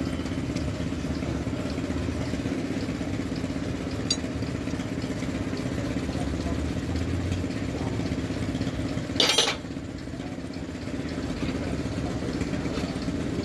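An engine idling steadily throughout, with a few light metallic clicks from hand tools and one brief loud burst of noise about nine seconds in.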